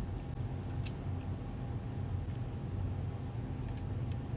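A few faint small clicks of an Allen key turning a screw into the metal mounting plate of a 3D printer extrusion head, about a second in and twice near the end, over a steady low hum.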